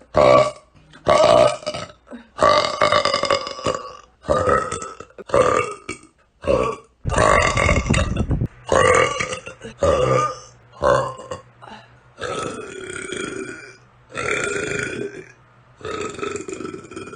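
A girl's deep burps, about a dozen one after another. Some are short, and some are drawn out for a second or more.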